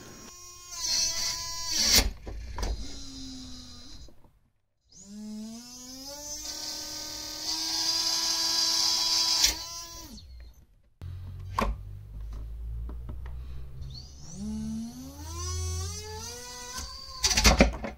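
The small brushless-motor-driven circular saw of a 150 g antweight combat robot spinning up three times, each a rising whine, and biting into an old robot chassis plate with loud clattering bangs: about two seconds in, about halfway through, and loudest near the end. The saw is hopping off-centre, which sets up vibration that backs out its bolts.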